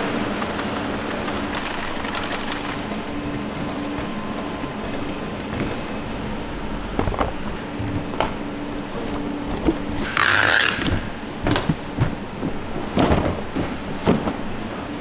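Factory machinery running with a steady hum, joined from about halfway by irregular clicks and knocks and a short hiss about ten seconds in.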